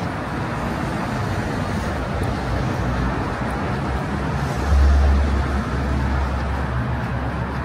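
Road traffic on a busy city avenue: a steady wash of passing cars, with a deep low rumble that swells suddenly a little past halfway and eases off near the end.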